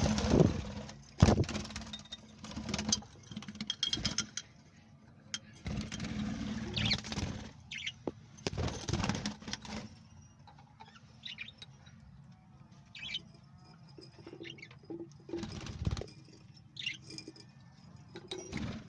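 Parrots chirping, with repeated loud bursts of flapping and rustling.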